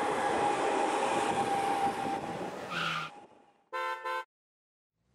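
A Shanghai maglev train rushes past with an even whooshing noise and a steady thin whine, cutting off after about three seconds. About a second later come two quick horn toots.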